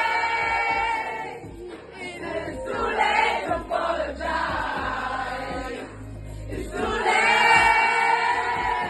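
A pop song with sung vocals. There are long held notes at the start and again about seven seconds in, with shorter sung phrases between.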